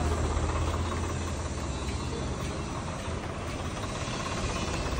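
A vehicle engine running steadily: a low hum that eases off after about a second and a half, over a steady background noise.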